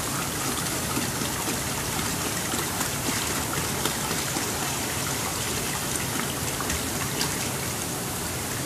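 Rust-remover solution poured steadily from plastic jugs, splashing onto a cast-iron small-block Chevy engine block and into the liquid pooled in a plastic tub.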